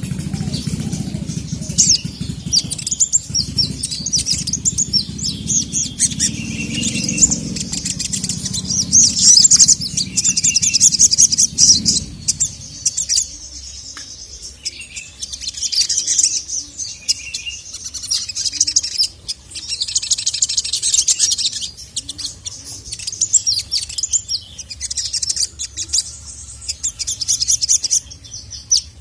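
Sogon (crimson sunbird) singing: rapid, high, twittering chirps and trills in repeated bursts. A low rumble sits under the song for the first twelve seconds, then stops.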